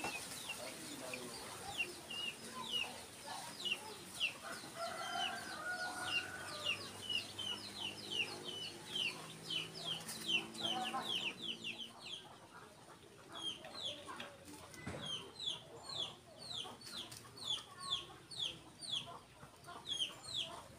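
Munia (bondol) nestlings begging: a steady run of thin, high chirps that slide downward, about two to three a second. Domestic chickens cluck in the background, with a rooster crowing about halfway through.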